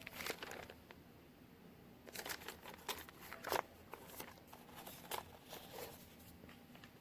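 Faint rustling and scattered light clicks of something being handled close to the microphone, in irregular clusters with the louder ones about two to three and a half seconds in.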